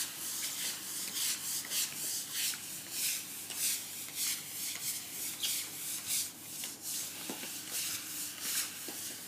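Water-fed scrubbing brush on a pole worked back and forth over wet stone paving, its bristles rasping in a steady rhythm of strokes a little over two a second as the water stream washes the dirt away.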